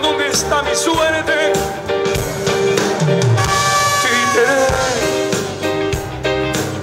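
Live band music through a concert PA, with a male singer's voice carrying the melody and holding one long note partway through.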